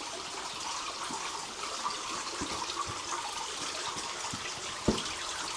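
Steady trickling, rushing water with faint scattered footsteps on stone steps. One sharper knock comes near the end.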